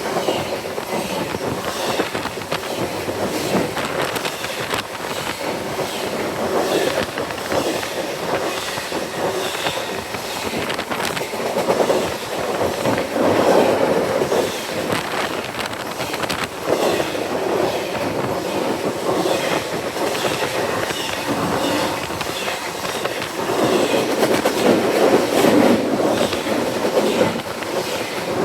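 A train passing close by on the tracks: a continuous loud rumble of the cars with the clickety-clack of wheels running over the rail joints, swelling louder a few times as the cars go by.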